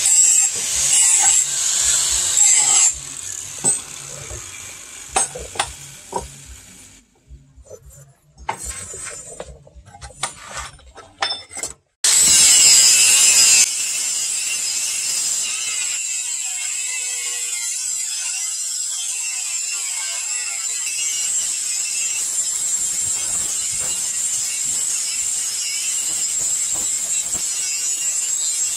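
Hand-held angle grinder with a sanding disc grinding a billhook blade of bearing steel, a steady high whine from about twelve seconds in. Before that, irregular scraping and clicking strokes of hand work on the blade.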